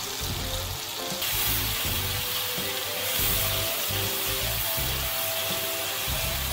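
Oil sizzling in a karahi as chopped onion and tomato fry with ginger-garlic paste while being stirred; the sizzle grows louder about a second in. Background music with low bass notes plays over it.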